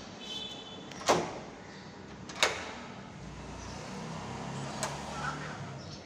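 Yale YDM7116A smart door lock: a short electronic beep, then two sharp metallic clicks of the lock mechanism about a second and a half apart, and a softer click near the end.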